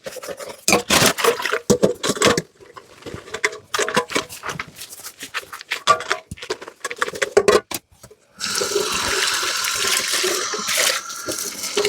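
Dishes clattering and knocking as they are handled and scrubbed in the sink, then a kitchen tap turned on about eight seconds in, water running steadily into the sink.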